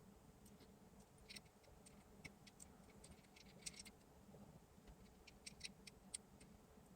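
Faint, irregular small clicks and taps of chips and a circuit board being handled while ICs are fitted into their sockets.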